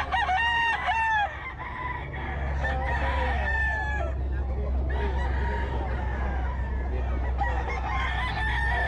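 Gamecocks (fighting roosters) crowing, with a loud crow in the first second and more crowing from other birds overlapping through the rest.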